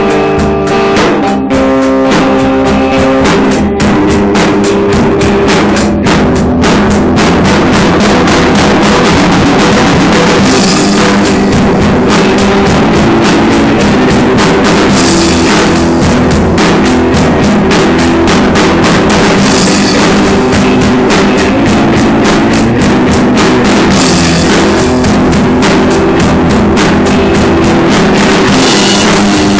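Loud rock jam: guitar and drum kit playing together, with clear guitar notes over steady drum hits.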